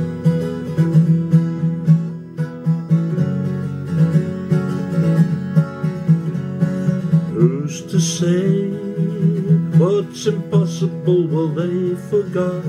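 12-string acoustic guitar strummed in a steady rhythm, with a voice starting to sing over it about halfway through.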